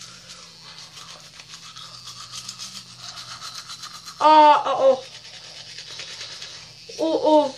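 A small battery-powered toothbrush buzzing steadily while its bristles scrub the teeth. Two loud wordless cries from the brusher break in about four seconds in and again near the end.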